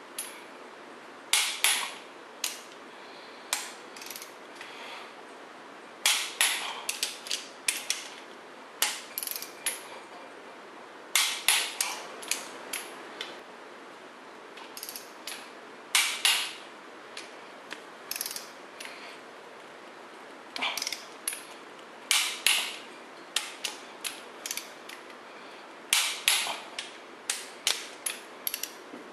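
Socket ratchet clicking in quick bursts of several clicks every few seconds, as cylinder-head bolts on a cast-iron head are turned down.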